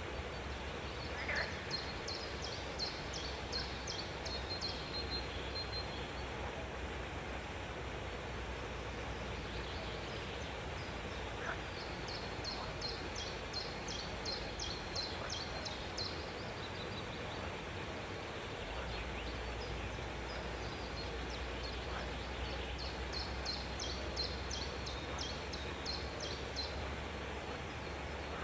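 A bird calling in three bouts of rapid, high, evenly repeated notes, about five a second, each bout lasting about four seconds, over a steady background hiss and low hum.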